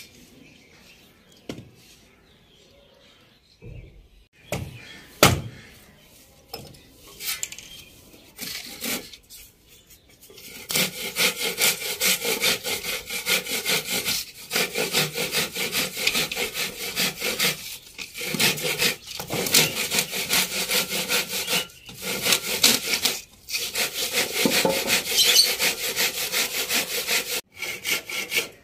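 Hand saw cutting through a wooden plank in steady back-and-forth strokes, starting about ten seconds in and stopping briefly a few times. Before the sawing, a few scattered knocks of wood.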